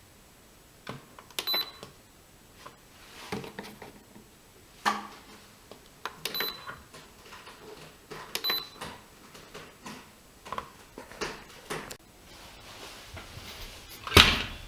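AEG Öko-Lavamat Lavalogic 1600 washing machine control panel being set: scattered clicks from the programme knob and buttons, with three short high beeps as options are chosen, then a loud clunk near the end.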